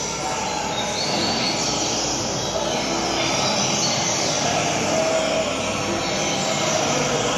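Steady loud rumbling noise, of the kind made by traffic or machinery, with a few faint high whistled notes showing over it now and then.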